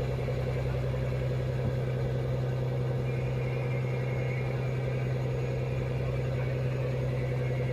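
Fishing trawler's diesel engine running at a steady speed, a constant low drone.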